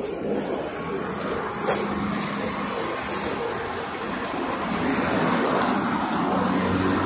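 LiAZ-5280 trolleybus passing close and drawing in to the stop: a steady rush of tyre and running noise that grows louder, with one sharp click a little under two seconds in.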